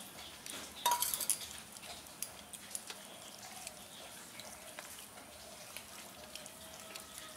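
A steel bowl clinks against a metal plate about a second in as dal is poured over rice, followed by faint, scattered soft sounds of a hand mixing the rice on the plate.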